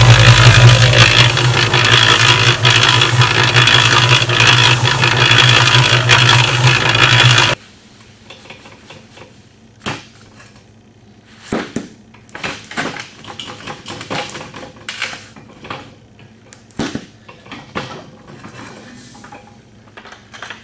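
Yardmax 1.6 cu ft electric concrete mixer running with a dry mineral mix tumbling in its drum: a loud, steady hum with rattle, which ends abruptly about seven seconds in. After that come quiet, scattered knocks and scrapes of plastic buckets being handled at the mixer.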